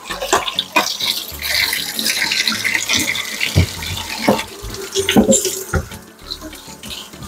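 Water running from a tap, with several sharp knocks and clatters over it.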